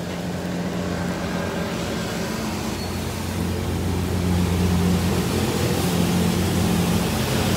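A road vehicle's engine runs with a low, steady drone that grows louder about four seconds in, over a hiss of rain.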